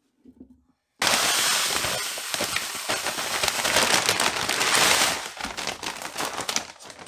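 Kitty litter poured from a plastic bag onto a concrete floor: a dense, gritty hiss of granules that starts suddenly about a second in and tapers off near the end.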